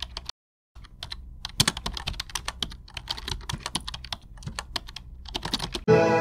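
Skip-Bo playing cards being handled and put down on a table: a fast, irregular run of small clicks and snaps that breaks off for a moment about half a second in. Music comes in near the end.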